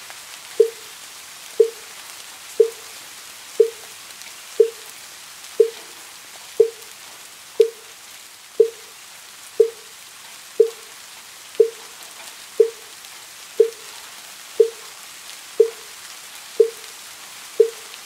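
Wooden fish (muyu), a Buddhist temple block, struck at an even pace of about once a second, each stroke a short pitched knock that dies away quickly. Steady rainfall runs underneath.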